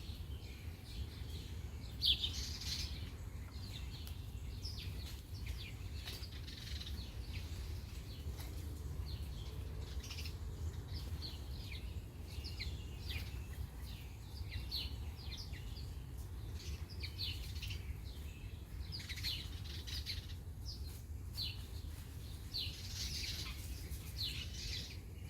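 Wild birds chirping and calling over and over, many short high chirps overlapping, over a steady low rumble.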